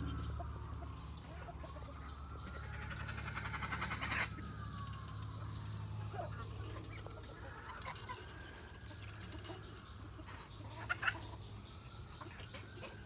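A hen clucking, with a quick run of calls ending sharply about four seconds in and a couple of sharp squawks near the end. Beneath it, a distant siren wails slowly up and down.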